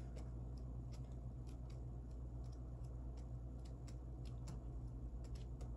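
Pages of a paper sticker book being flipped by hand: soft, scattered paper ticks and clicks over a steady low hum.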